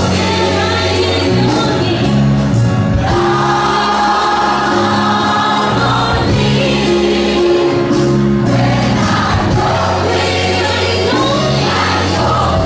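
Gospel choir singing with a female lead vocalist, backed by piano, bass and drums, with a steady low bass line under the voices.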